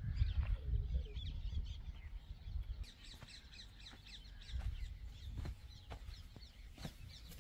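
Birds chirping and calling over a low rumble that is loudest in the first second, with a few sharp knocks near the end.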